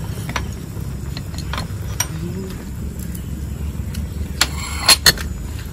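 Utensils clinking against bowls as noodle soup is mixed: a few scattered sharp clinks, the loudest two close together near the end, over a steady low rumble.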